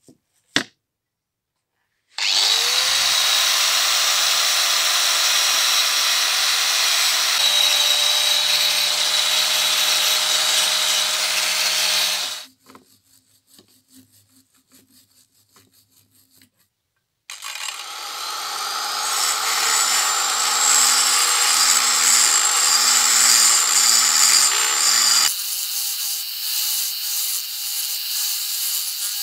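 A small electric rotary tool cleans rust from the steel parts of an antique scale. It spins up with a rising whine and runs for about ten seconds. A few seconds of faint scratching from a hand wire brush follow. Then a second, longer run begins, whose pitch jumps higher near the end as it works inside a pivot hole.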